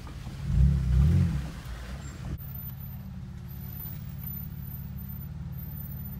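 Jeep engine heard from inside the cab, with a loud rev that rises and falls about a second in. It then changes abruptly to a steady low running hum.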